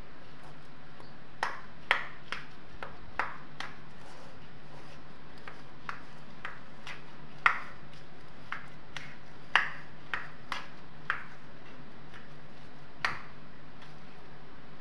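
Metal spoon clinking and scraping against a stainless steel bowl at irregular intervals while a mashed chickpea and onion mixture is stirred, a few strikes ringing briefly, over a faint steady low hum.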